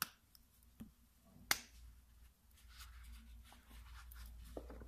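Gloved hands handling a steel-bracelet wristwatch on its cushion in a cardboard presentation box: three sharp clicks in the first second and a half, then soft rustling and scraping.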